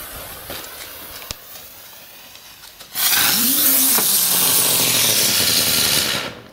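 A lit firework fuse sizzling for about three seconds, then a Lesli ground spinner catching and spinning with a loud, steady rushing hiss that cuts off suddenly about six seconds in.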